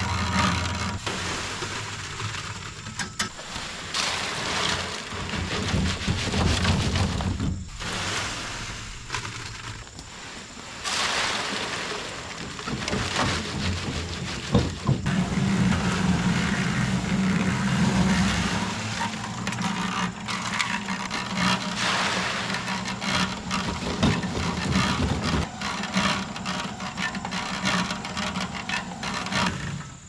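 Harbor Freight portable cement mixer running, its drum turning steadily, with scraping and a few sharp knocks over the top.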